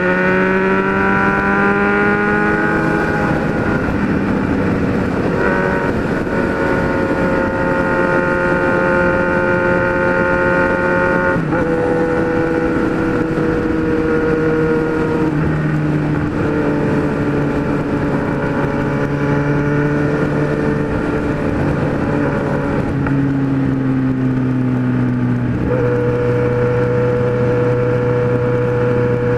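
Kawasaki Z1000's inline-four engine running at speed under the rider. It climbs in pitch over the first few seconds, then holds steady notes that step up or down to new pitches several times.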